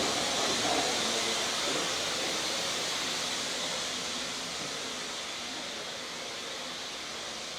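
Steam locomotive venting steam: a steady hiss that slowly dies away.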